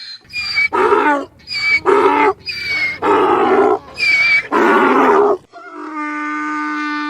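Donkey braying: a run of hee-haws, short high-pitched notes alternating with longer, louder rasping notes, about four cycles. Near the end it gives way to a steady, even-pitched note.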